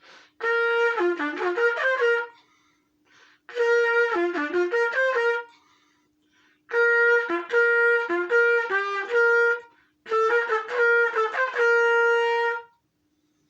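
Solo trumpet playing a marching-band third trumpet part in four short phrases, with brief pauses for breath between them. A faint steady hum can be heard in the gaps.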